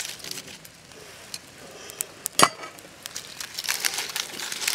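Charred, dry banana leaves crinkling and crackling as the cooked parcel is peeled open by hand, the crinkling growing denser near the end. A single sharp metal clink about halfway through, from the perforated metal ladle.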